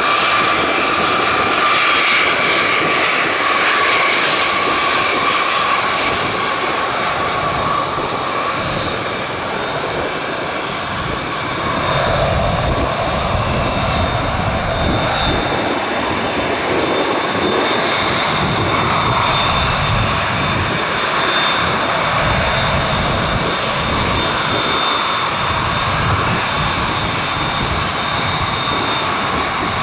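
Embraer E170 regional jet taxiing on its two turbofan engines at low thrust: a steady jet whine with several high tones over a broad rush. Deeper rumble comes in about twelve seconds in.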